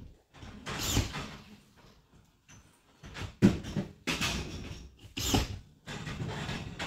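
Drywall work at the top edge of a hung gypsum board: a hand-held tool working against the board in about six short scraping bursts with brief gaps between them.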